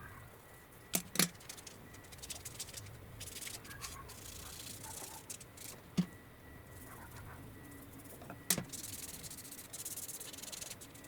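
Quiet rubbing or scraping strokes of hand finishing work, in two stretches, with a few sharp clicks or taps: two near the start, one in the middle and one late.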